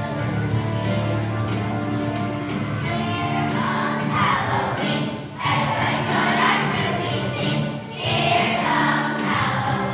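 Children's choir singing a song over instrumental accompaniment. The accompaniment plays alone at first, and the voices come in about three and a half seconds in, singing in phrases with brief breaks between them.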